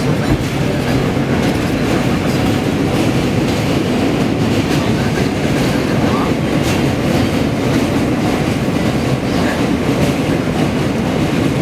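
J train subway car running steadily over the Williamsburg Bridge, heard from inside the car: a continuous rumble of wheels on rails with scattered clicks.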